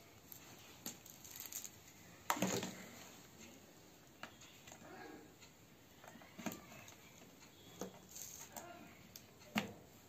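Audio cables and connectors being handled and plugged into the rear panel of a PreSonus Eris E4.5 studio monitor: faint rustling broken by several sharp clicks and knocks, the loudest about two seconds in.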